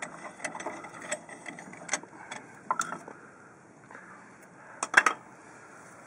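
Metal parts of a pickup's front brake caliper being handled, with scattered clicks and light knocks, and a sharp double knock about five seconds in.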